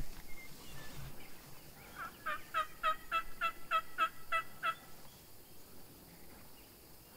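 Merriam's wild turkey yelping: a run of about eight evenly spaced yelps, roughly three a second, starting about two seconds in and lasting about two and a half seconds.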